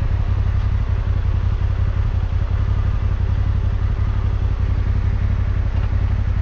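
Yamaha Ténéré 700's 689 cc parallel-twin engine running steadily, with a low, even exhaust beat.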